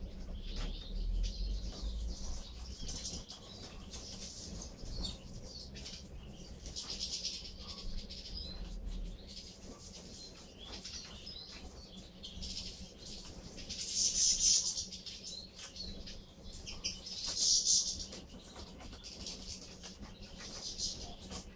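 A flock of European goldfinches twittering and chirping without a break as they feed, growing louder twice in the last third.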